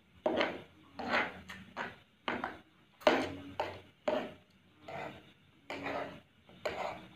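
Noisy eating of very spicy instant fried noodles: a quick run of short mouth sounds, about two every second.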